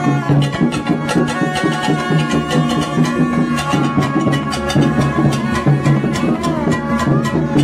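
Group noise-making with a hand drum and plastic horns: a fast, steady drumbeat of about four to five strokes a second under held horn tones that shift in pitch now and then.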